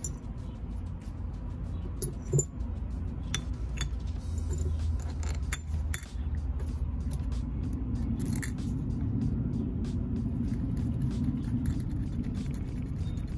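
Small metal clicks and clinks of Yamaha R1 water pump parts being handled and fitted by hand, with a sharper knock about two seconds in. Background music and a steady low rumble run underneath.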